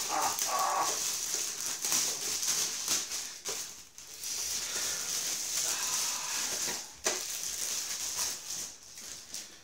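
Clear plastic wrapping crinkling and rustling in irregular spells as it is handled and pulled off a robot vacuum cleaner.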